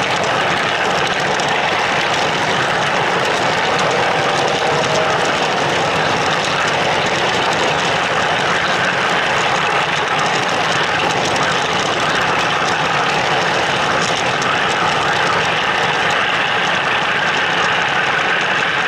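O scale model train running along the track, heard from a camera riding aboard: a steady, unbroken rolling noise of the wheels on the rails and the running gear.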